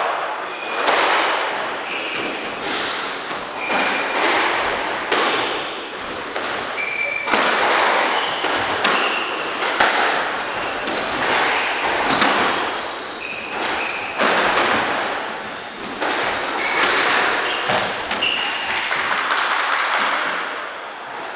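A squash rally: the ball cracks off rackets and the court walls every second or two, ringing in the hard-walled court, with short high squeaks of court shoes on the wooden floor in between.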